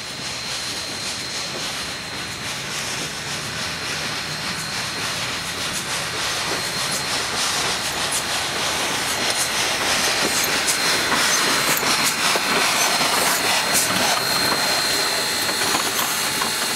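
Ohio Power & Light No. 3, a 0-6-0 switcher steam locomotive, rolling slowly past with steam hissing, growing steadily louder as it nears. From about halfway through, a rapid run of metallic clicks and clanks from the wheels and running gear joins the hiss.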